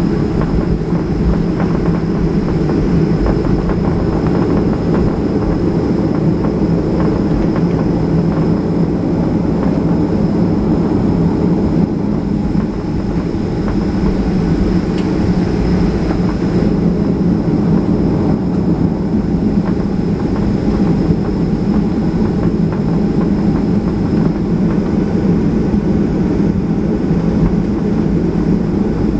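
Boeing 737-800 with its CFM56 turbofans running: a loud, steady rumble with a faint steady high whine above it.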